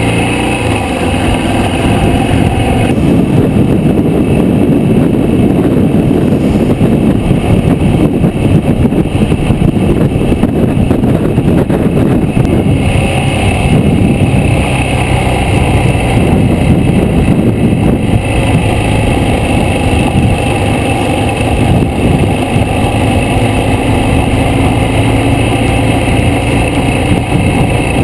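Motorcycle engine running at steady cruising speed, heard from a camera on the moving bike, with constant wind rush over the microphone.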